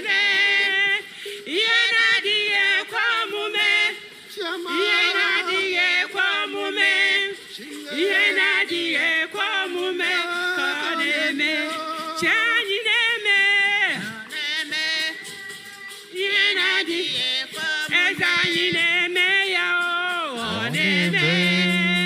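Singing: a song of voices with wavering held notes, in phrases of a second or two, ending on a low held note.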